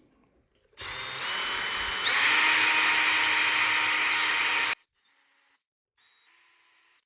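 Small electric drill motor running for about four seconds, stepping up in speed partway through, then stopping abruptly; it is driving an M3 tap to cut threads into soft plastic.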